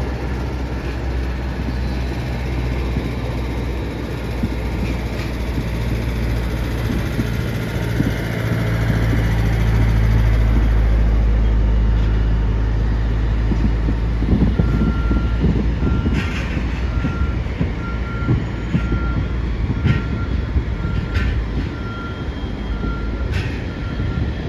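Regional jet's engines rumbling steadily as it taxis past, swelling in the middle. From about halfway through, a vehicle's backup alarm beeps at an even pace, and a few sharp distant pops of the fireworks finale cut through.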